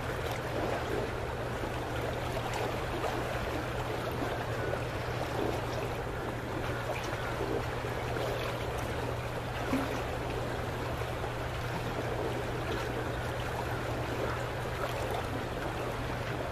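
Small waves lapping and splashing against the pier just below the camera, an even wash of water sound, with a steady low hum underneath.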